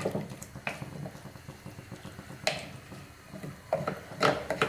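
Wooden spatula stirring rice, vegetables and hot water in an open pressure cooker: soft sloshing with a few sharp clicks of the spatula against the pot.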